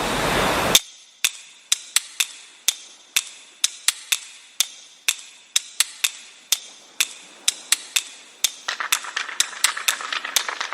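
A brief burst of noise, then a run of sharp, separate clicks about two a second at uneven spacing, joined near the end by a steady hiss.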